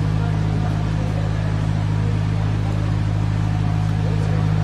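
Hydraulic wall saw rig running with a steady low hum.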